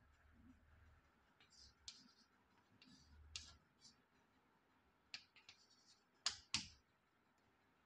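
Chalk writing on a blackboard: short scratchy strokes and sharp taps as numbers are written, with two loud taps close together near the end.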